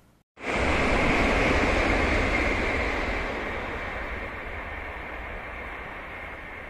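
Tokaido Shinkansen train passing on the viaduct: a steady rushing noise that starts abruptly and then slowly fades as the train goes by.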